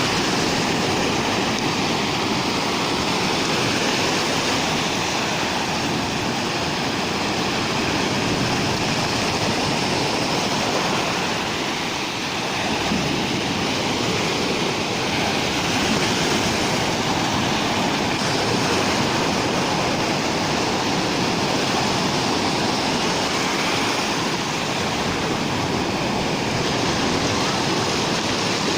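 Rough sea surf: waves breaking on the shore in a loud, continuous rush with no clear gaps between breakers, easing slightly about twelve seconds in.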